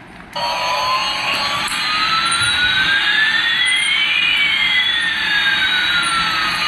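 Electronic jet-engine sound effect from a toy airliner's speaker. It starts about half a second in as a steady hiss, with two thin whistling tones, one slowly rising and one slowly falling, that cross midway.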